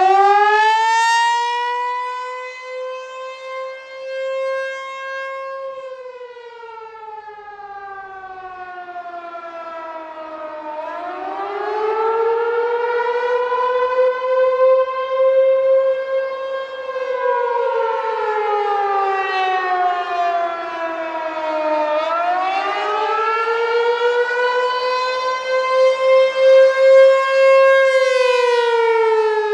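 American Signal T-128 rotating outdoor warning siren sounding the attack signal: one steady wailing tone glides up for about five seconds, then down for about five, three times over. The level swells and fades as the narrow projection horn turns toward and away.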